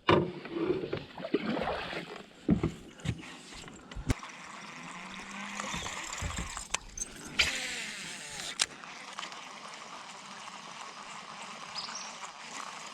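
Several sharp knocks against a small boat in the first few seconds, then a steady wash of flowing, trickling water, with a few more clicks partway through.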